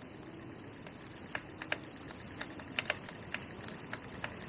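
Fishing reel ticking with irregular sharp clicks while a hooked fish holds the rod under load.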